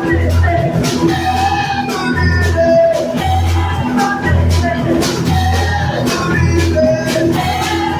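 Rock band playing live with a pulsing bass line, cymbals and a melodic instrument line, with no clear singing.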